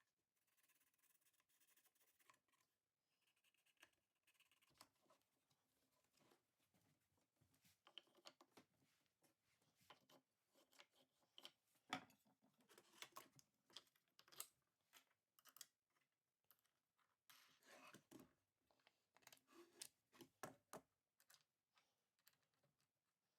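Near silence broken by faint, irregular clicks, taps and short scrapes of small objects being handled, busiest in the second half.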